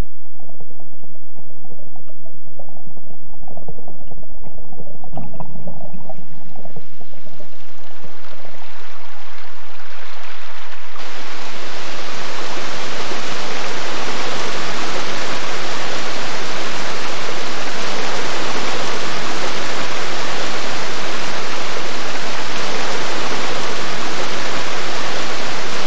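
Waterfall pouring into a rocky pool: a steady, loud rush of water that comes in suddenly about eleven seconds in, after a quiet, muffled start.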